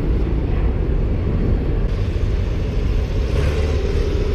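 Steady low rumble of a running engine, even in level with no breaks.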